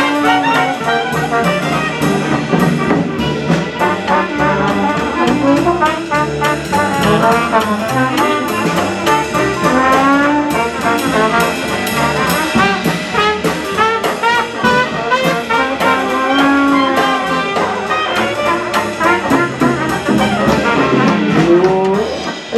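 Live traditional jazz band playing an instrumental passage: clarinet, trombone and trumpet over double bass and drums with a steady beat.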